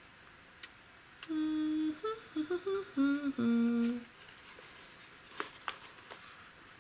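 A woman humming a short tune of a few held notes and small slides. Two light taps follow near the end as cardboard card-deck boxes are handled.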